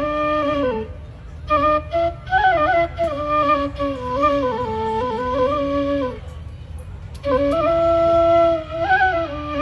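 Suling (Indonesian bamboo flute) playing an ornamented melody through a PA system, in three phrases with short breaks about a second in and around six seconds in.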